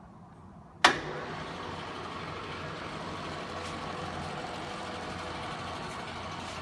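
A sharp clack about a second in as the Hardinge horizontal milling machine is switched on in reverse, then its spindle motor and belt drive run steadily with a constant hum.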